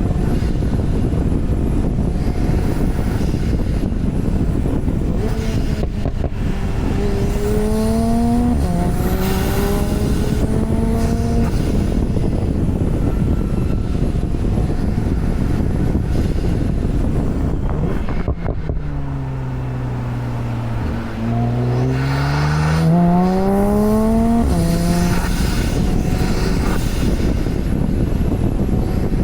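Porsche 991 Turbo's twin-turbo flat-six under way over steady road and wind noise. The engine note climbs under acceleration, with a gear change partway through, then drops low and climbs again under a second pull.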